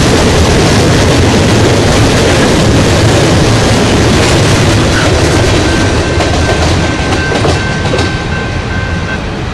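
Loaded coal hopper cars of a freight train rolling past, wheels clattering over the rail joints. The rumble eases as the last car goes by, and a thin steady high tone runs through the last few seconds.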